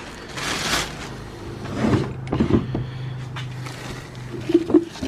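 A drawer sliding open, followed by several knocks and rattles of loose items inside as they are rummaged through, over a low steady hum.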